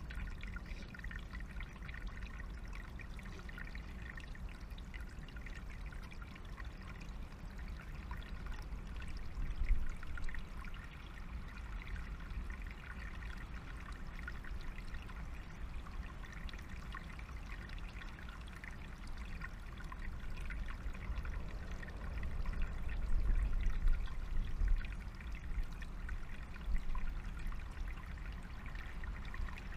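Small forest stream trickling steadily over stones, with a low rumble underneath that swells briefly twice.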